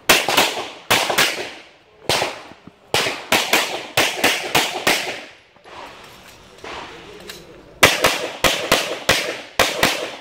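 Glock 17 Gen 4 9mm pistol firing about twenty shots in rapid strings, three to four shots a second, with a break of about two seconds in the middle.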